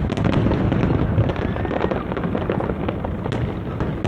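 Aerial fireworks going off in a dense barrage: many rapid sharp cracks and bangs over a continuous rumble of bursts.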